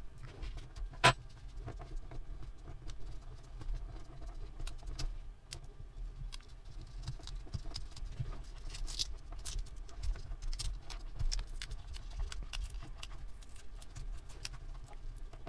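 Handling noises from prying the two-cell battery pack out of a Soundcore Motion 300 speaker's housing: scattered clicks, scrapes and crinkles of plastic, tape and foam, with one sharp click about a second in.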